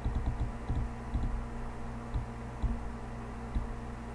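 Irregular soft low thumps, about nine, some with faint clicks, from a computer mouse being clicked and moved on a desk near the microphone. A steady electrical hum runs under them.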